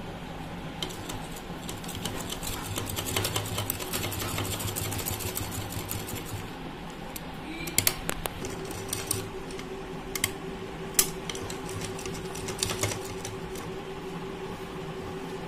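Domestic sewing machine stitching piping onto a neckline: a run of rapid needle strokes for about five seconds, then it stops, followed by a few shorter stitching runs and sharp clicks.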